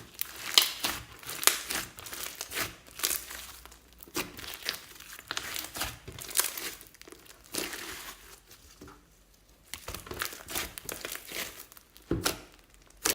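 Glossy slime being mixed and pressed by hand, giving irregular sticky crackles and pops, with a short lull near the end.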